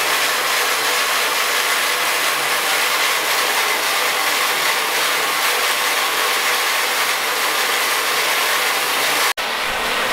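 Pump-driven water jet from a brewery kettle's whirlpool arm spraying hard against the inside wall of the vessel, "like a jet wash": a loud, steady hiss. It cuts off abruptly near the end, and a similar rushing noise follows.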